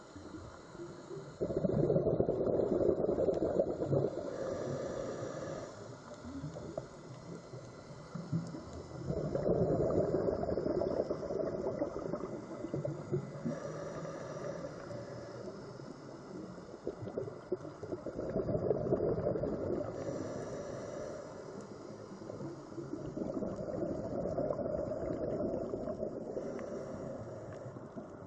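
A scuba diver breathing through a regulator underwater: four gurgling bursts of exhaled bubbles, each two to three seconds long and roughly eight seconds apart, with a quieter hiss of inhalation between them.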